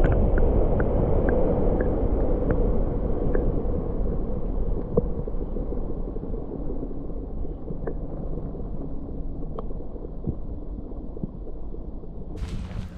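Muffled underwater sound of shallow salt water heard through a submerged action camera: a low rumbling gurgle with faint clicks, about two a second at first. Near the end the sound opens up as the camera breaks the surface.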